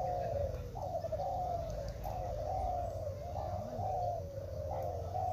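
A chorus of many caged Kelantan spotted doves (derkuku) cooing at once, their overlapping coo phrases following one another about every half second. A low steady rumble runs underneath.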